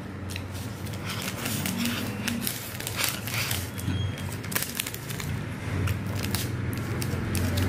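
Crinkling and crackling of a plastic snack packet being handled, with many small irregular clicks over a low steady hum.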